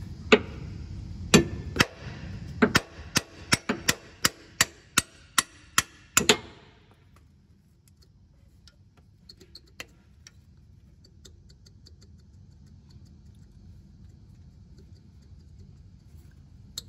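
Hammer tapping the crank pulley off a 1.6 TU5JP4 petrol engine to crack it free: a run of about fifteen sharp taps, speeding up to about three a second, with the last tap the heaviest at about six seconds in.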